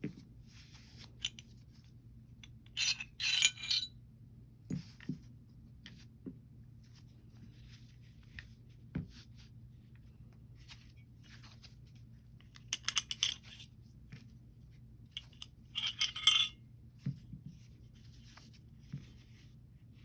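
Metal pistol parts being handled and set down on a hard surface during field-stripping: scattered clicks and clinks, with louder clattering clusters about three seconds in, around thirteen seconds and around sixteen seconds.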